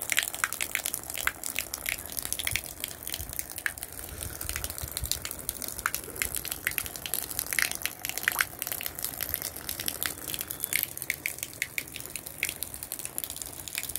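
A jet of water pouring into a shallow, nearly drained tarpaulin fish tank, splashing steadily with many sharp drips and splatters.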